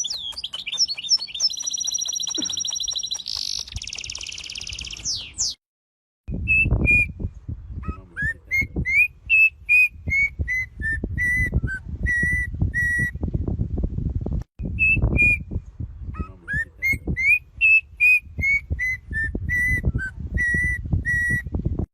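Bird song: a fast, high warbling trill, then after a short break a phrase of clear whistled notes that climb and then settle into a run of even, repeated notes. The phrase is heard twice, with a low rumble under the notes.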